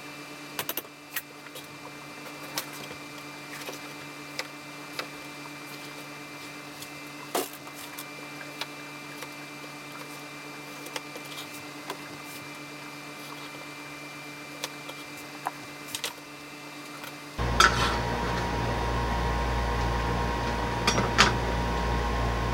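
Scattered light clicks and knocks of kitchen prep, with a cup, a glass dish and a knife on a plastic cutting board, over a steady electrical hum. About three-quarters of the way through, the hum abruptly turns louder and deeper, and a few sharper knocks follow.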